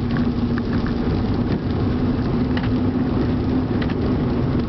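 Inside a moving car: steady engine and road drone with a low, even hum, and a few faint irregular ticks.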